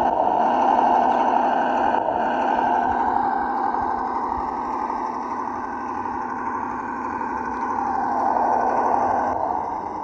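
A 1:12 scale RC ZIL-131 truck model running, with a steady engine-like drone that eases a little midway and picks up again near the end.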